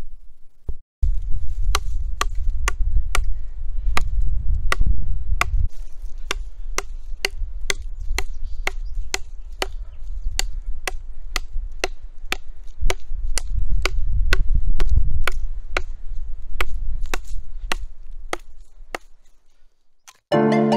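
A fixed-blade knife chopping into a branch laid across a log: a long, steady run of sharp strikes on wood, about two to three a second, over a low rumble.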